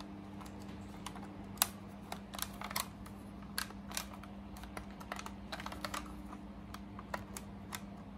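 Irregular plastic clicks and taps from a battery-powered Hitachi electric knife sharpener as its switch is pressed and it is handled, over a faint steady hum. The owner puts its trouble down to loose batteries.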